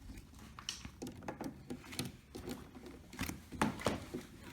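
Hands handling computer parts: irregular light clicks and rustles.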